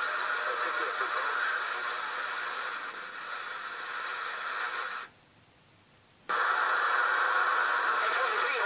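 CB radio on AM channel 6 receiving distant skip signals from across the ocean: a hiss of static with faint, garbled voices and steady whistling tones. A little past the middle the signal cuts out to near silence for just over a second, then comes straight back.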